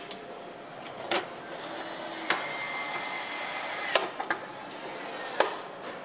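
Motorcycle assembly-line noise: a steady hiss, a power tool whining at one steady pitch for about a second and a half midway, and several sharp clicks and clanks of tools on metal parts.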